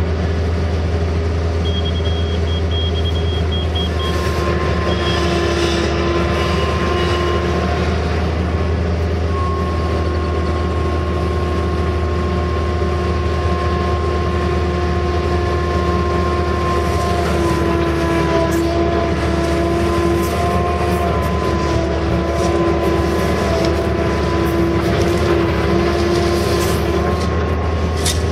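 Case CX160 excavator running steadily, heard from inside the cab, as the boom and bucket are worked. A deep engine rumble sits under a steady whine whose pitch shifts a little now and then.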